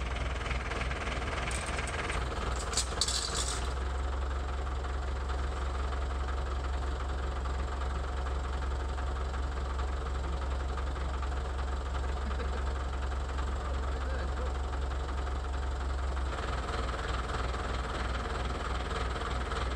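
Engine of a yellow telehandler running steadily as it holds and lifts a tank's radial engine on chains, with a few short metallic clinks about two to four seconds in.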